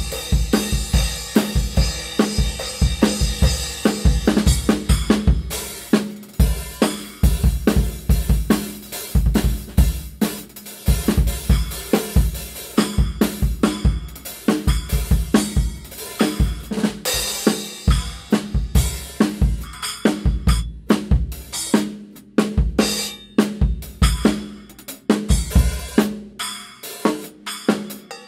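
Drum kit played in a groove, with kick, snare and toms under Sabian B8-series cymbals. The cymbal wash is heavy over the first few seconds, and the playing breaks into shorter phrases with brief gaps in the second half.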